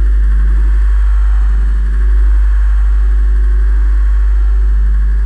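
Loud, deep, steady bass drone, swelling briefly about two seconds in, with a fainter pulsing tone above it.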